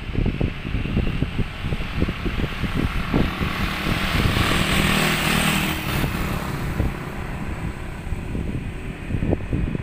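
A few motorcycles and scooters ride past; their engine and road noise swells about four seconds in and fades away by about six seconds. Wind buffets the microphone throughout.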